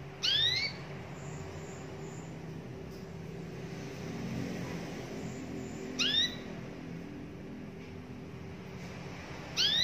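Domestic canary giving a short rising call note three times, a few seconds apart, over a low steady hum.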